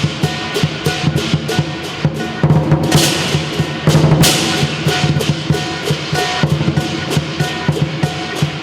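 Southern lion dance percussion: the big lion drum beating a fast, even rhythm, with cymbals clashing and a gong ringing along. Two louder cymbal crashes come about three and four seconds in.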